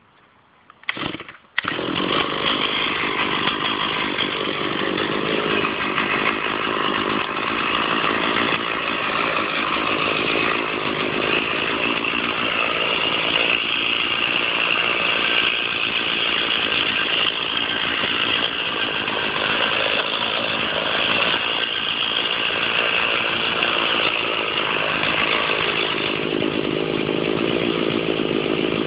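Stihl chainsaw starting with a short burst about a second in, then running steadily, cutting into an oak trunk.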